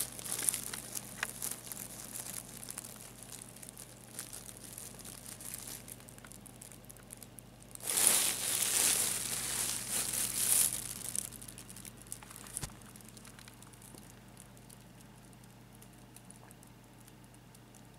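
Nylon pop-up cat tunnel crinkling and rustling as a kitten moves about inside it. The rustling is loudest in a burst of about three seconds around the middle, then dies down.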